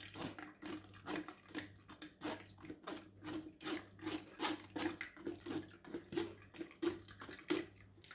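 Blended cucumber and apple juice being worked through a strainer: a run of short liquid splashes and drips, about two or three a second, over a low steady hum.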